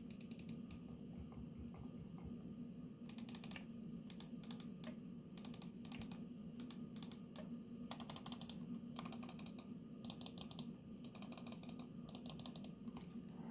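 Maxtill RATIO RWM20 wireless gaming mouse buttons being clicked, in bursts of rapid repeated clicks separated by short pauses.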